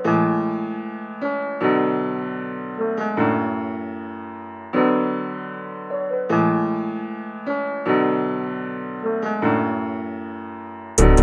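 Background music: slow piano chords, each struck and left to ring out, about one every second and a half. Loud drums come in suddenly at the very end.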